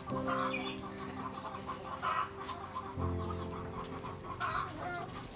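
Chickens clucking a few times over soft background music of sustained chords.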